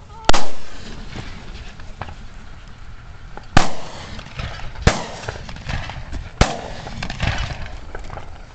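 Four shotgun blasts, each with a short echoing tail: one just after the start, then three more in quick succession about a second and a half apart.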